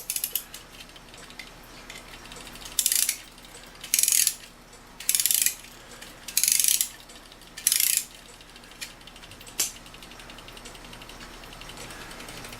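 A clock's mainspring being wound with a key: five short runs of rapid ratchet clicking from the click and ratchet wheel, each about half a second long and roughly a second apart.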